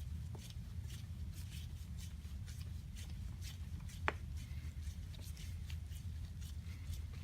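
A brass jet being screwed by hand into a freshly tapped carburetor body, with faint light metal ticks about twice a second and one sharper click about four seconds in, over a steady low hum.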